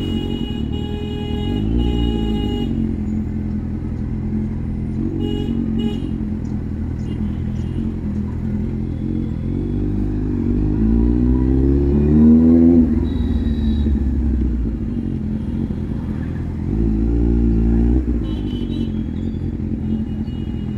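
Kawasaki naked bike's inline-four engine riding in slow traffic, with four rising surges of revs as the throttle is opened. The longest and loudest climbs for about three seconds near the middle. A steady high-pitched tone sounds briefly at the start and again near the end.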